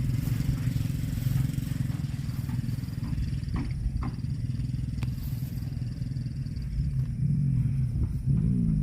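An engine running steadily with a low rumble, with a few faint clicks in the middle and a low falling tone near the end.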